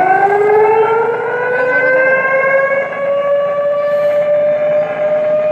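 Siren of a water level alarm system sounding loudly: its pitch climbs steadily for the first few seconds, then settles into a steady wail.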